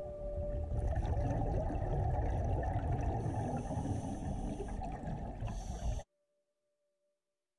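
Underwater ambient noise heard through a camera in an underwater housing: a low rumble with crackling water noise, cutting off suddenly about six seconds in.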